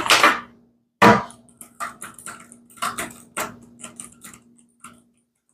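Typing on a laptop keyboard: a run of light, irregular key taps for about three seconds, over a faint steady hum. Two short hissing sounds come first.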